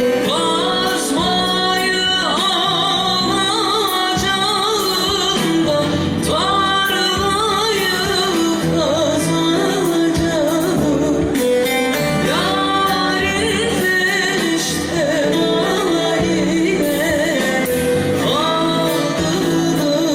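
A woman singing a Turkish folk song (türkü) with instrumental accompaniment, in long held, wavering notes.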